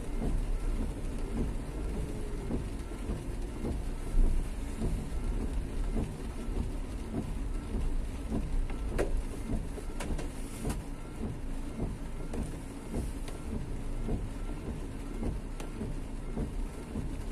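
Steady rain falling along a city street with road traffic passing, and a single sharp knock about four seconds in.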